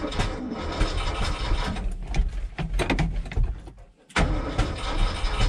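Starter cranking the cold 360 FE V8 of a 1973 Ford F-250, turning the engine over slowly without it starting. The cranking stops briefly a little after four seconds in, then starts again.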